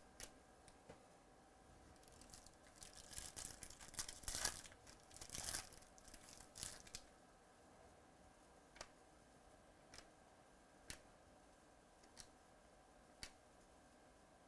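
Glossy chromium baseball cards being slid and flipped against one another in the hands: a burst of scraping, crinkly rustles in the first half, then single soft clicks about once a second as cards are moved one at a time.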